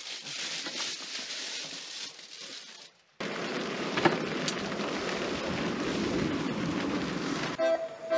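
A steady hiss for about three seconds. Then, after a brief cut, glowing charcoal in a tabletop grill crackles and hisses under a wire grate, with a couple of sharp pops. Music comes in near the end.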